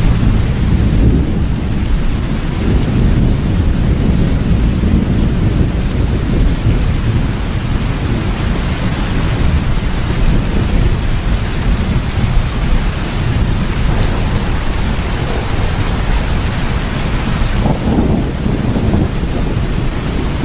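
Steady rain falling, with a continuous low rumble of thunder underneath. The hiss of the rain grows brighter near the end.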